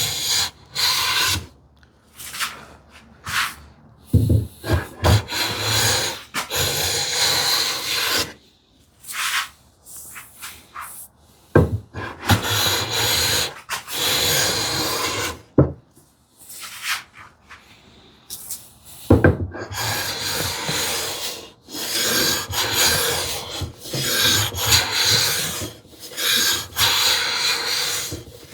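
Hand plane cutting shavings from an ash board in repeated strokes, each about a second or two long with short pauses between them; the plane's blade is freshly sharpened.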